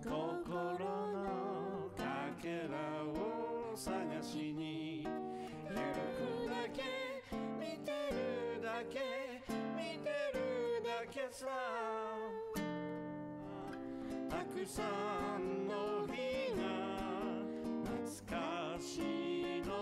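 A man singing a song into a microphone over strummed acoustic guitar.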